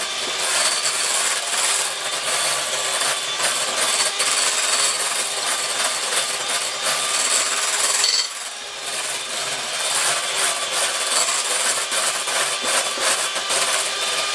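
Electric hand mixer running steadily, its beaters churning thick cream in a glass bowl, with a short dip about eight seconds in. The cream is whipped past stiff and close to breaking into butter.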